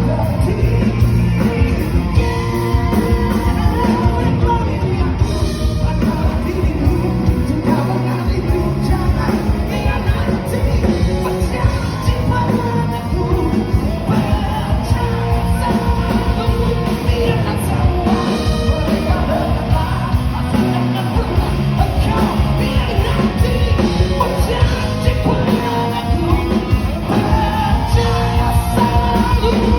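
Rock band playing live, a lead vocalist singing over the full band with a steady beat.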